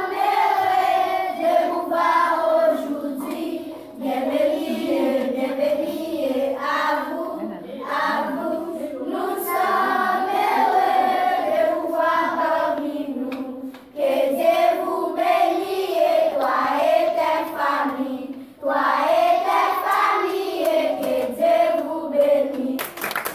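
A group of children singing a song together in unison, in phrases with short breaks between them. Clapping breaks out right at the end.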